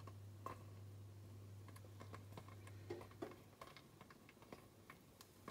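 Near silence: faint, irregular small ticks and clicks over a low steady hum that stops a little past halfway.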